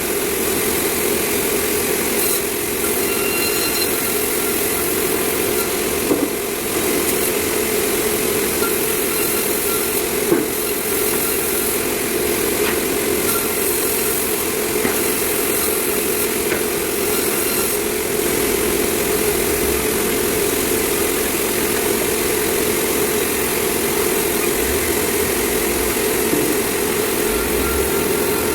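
Sawmill machinery running with a steady, unbroken drone.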